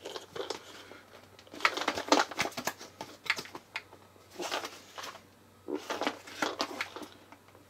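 Cardboard and plastic toy packaging being handled and pulled apart: scattered clicks, taps and crinkling rustles with short pauses between them.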